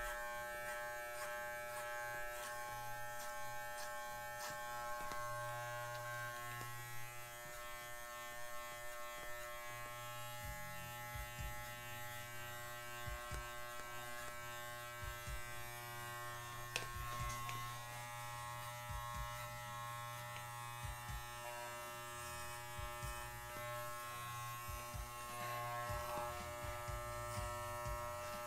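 Corded electric pet clipper running with a steady buzz while clipping a miniature schnauzer's coat. Occasional low thumps are heard from about ten seconds in.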